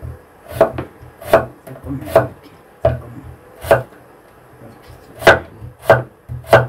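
Kitchen knife chopping a small Korean radish on a wooden cutting board: eight sharp chops of the blade through the radish onto the board, with a short pause midway.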